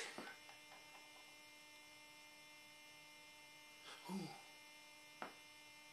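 Near silence with a faint, steady electrical hum, broken by a brief faint vocal sound about four seconds in and a small click about five seconds in.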